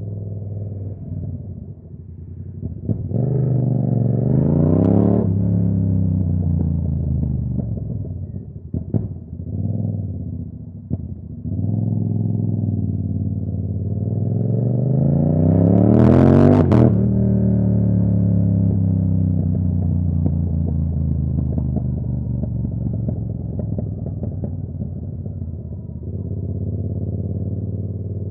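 Yamaha R7's parallel-twin engine under way, accelerating briefly, then pulling a longer and higher rising rev that cuts off sharply. It then winds down slowly as the bike decelerates.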